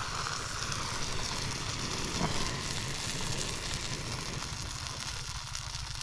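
Food sizzling in a frying pan over a portable gas camping stove, a steady hiss of frying and the burner.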